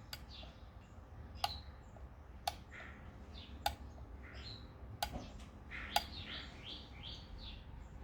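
Birds chirping in short rising and falling calls, with six sharp clicks about a second apart, over a low steady hum.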